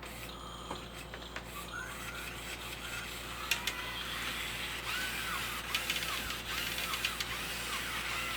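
Robosapien V2 toy robot running under test: its small gear motors whir and click, and from about halfway in its speaker plays a string of short rising-and-falling electronic chirps, about two a second.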